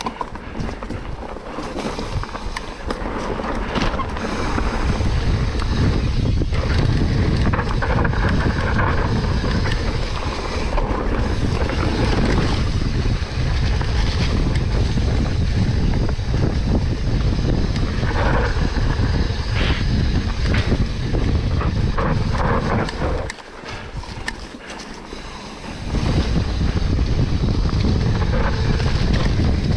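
Wind buffeting an action camera's microphone during a mountain-bike descent, mixed with tyre noise and knocks and rattles from the bike over rough trail. About three-quarters of the way through, the rush drops off for a couple of seconds, then comes back.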